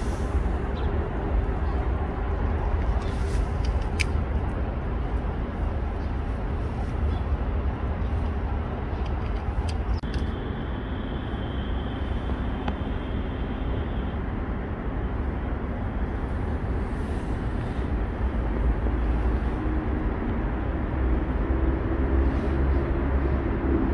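Steady outdoor background noise with a deep rumble, and a thin high tone for a few seconds around the middle.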